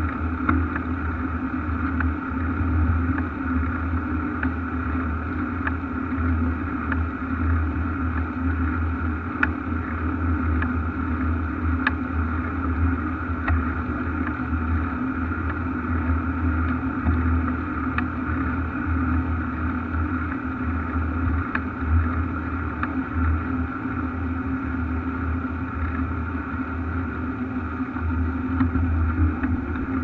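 Steady rumbling noise of a bicycle ride as picked up by a bike-mounted camera's microphone: wind and tyre-on-asphalt rumble, with a few faint clicks scattered through.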